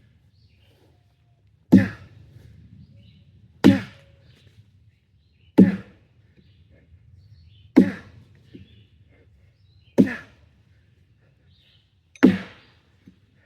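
Axe chopping wood: six sharp strikes at a steady pace, about one every two seconds.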